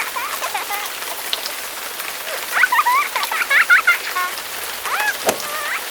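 Stock sound effect of steady rain, with short bird chirps over it in two clusters, in the middle and near the end, and a single sharp knock about five seconds in.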